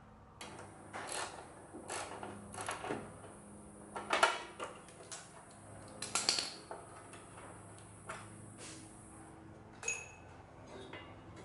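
Irregular metal clinks, knocks and scrapes of a spanner working bolts loose on a vintage engine's cover, loudest a little after four seconds and again around six seconds.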